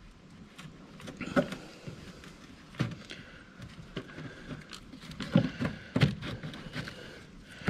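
Hands working in a car engine bay: scattered clicks, light knocks and rustling as a work lamp is picked up and moved about over the engine, the sharpest knocks about five and six seconds in.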